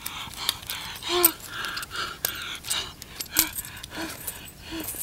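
A bag being rummaged through on the ground: rustling with scattered light clicks and clinks, and several short squeaky sounds spaced through it.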